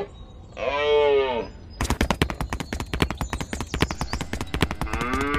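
A cow moos once, then a fast, rattling run of sharp clicks, like gunfire, goes on for about three seconds. A second moo begins near the end.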